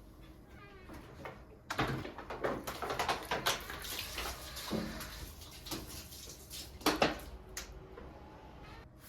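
Household clatter and rustling as things are handled and put away, a dense run of clicks and knocks starting about two seconds in, with a sharp double knock about seven seconds in.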